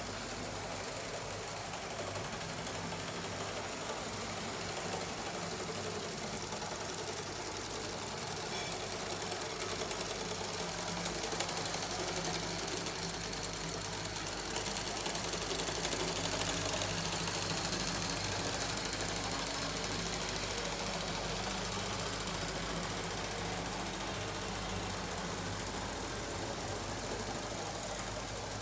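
Two Mamod live-steam engines driving a Meccano Fairlie-style G-gauge locomotive, running with a rapid, even chuffing over a steady steam hiss; the two engines run unsynchronised. It grows a little louder in the middle.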